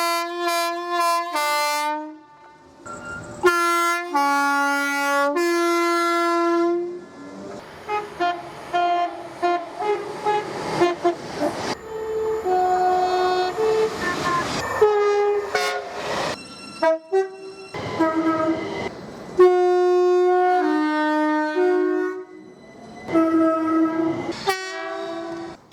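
Train horns sounding a string of short blasts and held notes, stepping between different pitches like a played tune. Through the middle they mix with the noise of a train running past.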